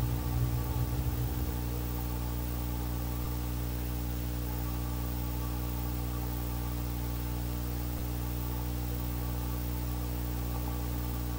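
Steady electrical hum with a constant hiss, several fixed low tones at once. A low fluttering rumble underneath stops about a second and a half in.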